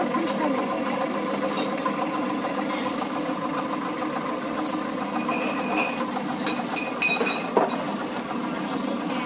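Sesame-dehulling machine running with a steady mechanical hum, its shaking tray feeding roasted seeds into a sieve. A single sharp knock comes about seven and a half seconds in.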